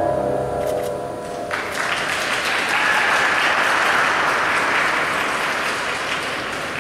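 The routine's music ends on held notes, and about a second and a half in an audience breaks into applause that slowly fades.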